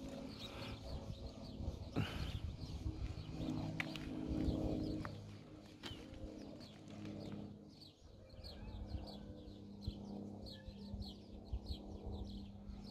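Wild birds calling and chirping, with a quick run of short high chirps in the second half, and a few sharp clicks.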